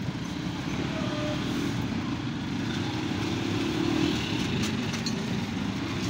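An engine running steadily, a low even rumble.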